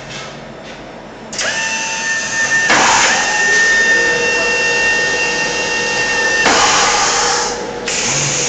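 A welding robot's torch-cleaning station at work: a steady motor whine with a loud hiss of air, starting about a second and a half in and stopping about two seconds before the end. There are louder rushing bursts about three seconds in and near the end.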